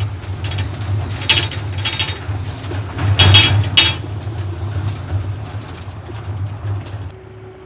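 Pickup truck running while towing a trailer, with a steady low engine drone and several loud metallic clanks and rattles. About seven seconds in, it cuts to a quieter steady hum.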